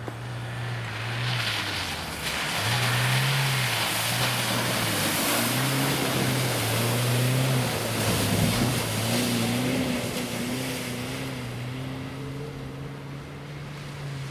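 Chevrolet Niva's engine revving hard under load, its pitch rising and falling with the throttle, while the tyres churn and spray through slushy snow. Loudest in the middle as it passes, then fading away.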